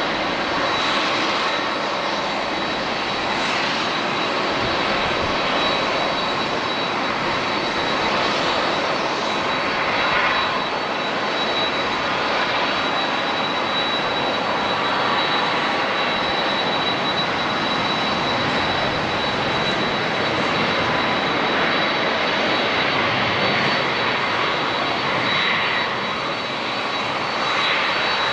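Jet engines of a Boeing 787-9 Dreamliner running steadily: an even rushing noise with a steady high-pitched whine.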